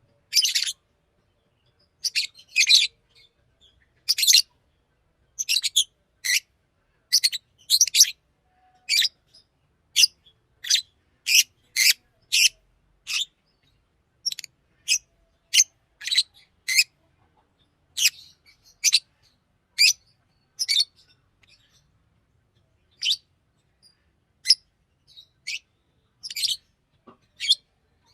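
Fischer's lovebird chirping: a long run of short, sharp, high-pitched chirps, about one or two a second, broken by a pause of about two seconds shortly after the middle.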